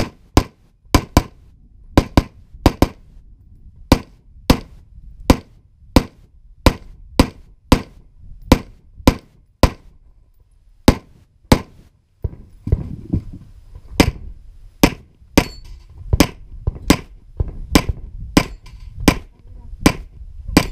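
A carbine firing rapidly: about thirty sharp, loud shots, single and in quick pairs, at roughly one to two shots a second.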